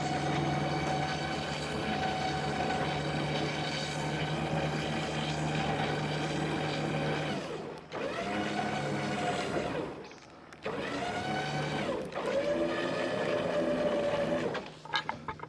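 An engine running with a steady pitch, then dropping off and picking up again twice under changing load, and dying away near the end.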